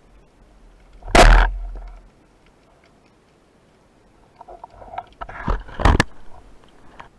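Rubber-band speargun firing underwater about a second in: one loud sharp snap that dies away over about a second. Near the end, a cluster of sharp clicks and knocks with two loud snaps.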